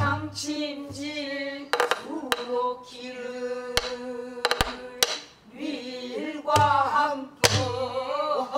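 A woman singing pansori in long, wavering held notes, accompanying herself on a buk barrel drum: sharp stick strokes on the drum mixed with deep thuds from the drumhead, struck at uneven intervals between phrases.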